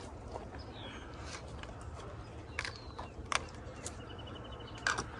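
A few scattered light clicks over a quiet outdoor background, with a short high chirping bird call about four seconds in.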